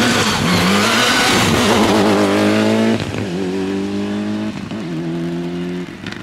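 Mitsubishi Lancer Evolution rally car's turbocharged four-cylinder engine at full throttle, passing close with a hiss of tyre spray on the wet road and accelerating away. The engine note climbs and drops through three quick upshifts about a second and a half apart, then fades as the car pulls away.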